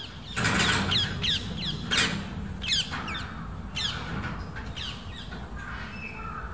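Birds squawking: a rapid series of short, sharp, falling calls, loudest and thickest in the first three seconds, then sparser, over a low steady background hum.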